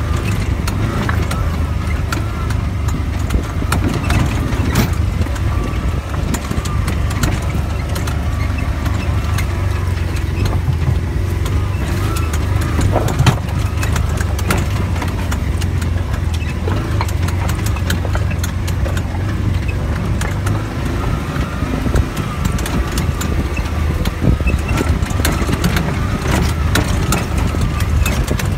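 Engine of an off-road vehicle running steadily as it travels over a rocky dirt trail, with a low, even hum and frequent small clicks and rattles from the ride over stones.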